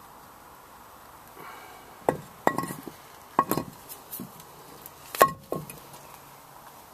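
Sharp metal-on-metal clinks, about five of them with a short ring, loudest about five seconds in, as the cylinder head of a Copeland refrigeration compressor is taken off to expose the valve plate.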